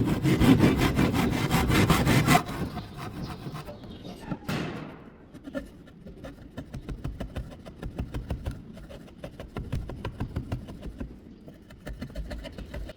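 Wood being sawn by hand: loud rasping strokes for about the first two seconds, then quieter, evenly repeated strokes.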